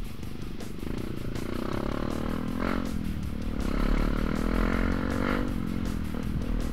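Trail motorcycle engine revving, its pitch climbing and then dropping away twice as the throttle is opened and closed.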